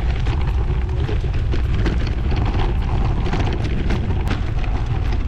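Wind buffeting an action camera's microphone as a loud, steady low rumble, with small clicks from bicycle tyres rolling over a gravel dirt track.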